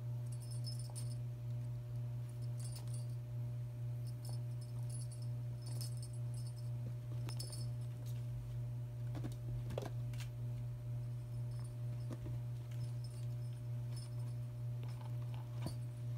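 Small metal jingle, like a toy bell, sounding in short shakes every second or two as kittens bat at a string toy, with scattered light taps of their paws and claws on the carpeted scratcher. A steady low hum runs underneath and is the loudest sound.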